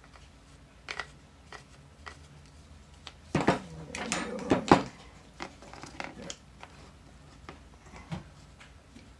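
Handling noise of small joystick parts and tools being worked by hand: scattered light clicks, with a louder run of clatter and rattling about three and a half seconds in that lasts a second or so.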